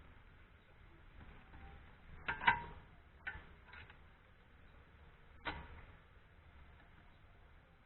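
Metal tools or parts being handled: a few sharp clinks and knocks. The loudest comes about two and a half seconds in and rings briefly, and another follows about three seconds later.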